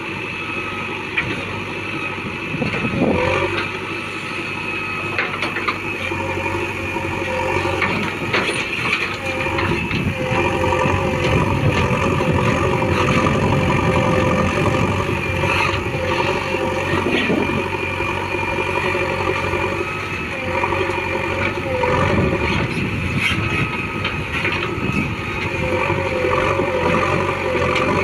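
Diesel engine of a JCB 3DX backhoe loader running under load, with a wavering whine and scattered clanks and knocks as it digs and loads mud. The engine grows louder from about ten seconds in.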